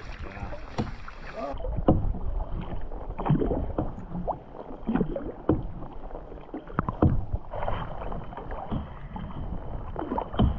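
Canoe paddles dipping and splashing in river water, strokes coming irregularly every second or so, while paddling upstream against a stiff current.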